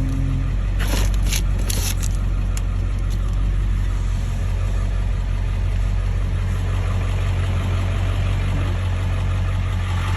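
Ford F-350 pickup's engine idling steadily, with a few short clicks or rustles about one to two seconds in.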